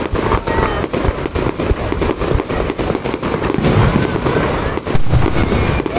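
Aerial fireworks display: a dense run of bangs and crackling as shells burst overhead.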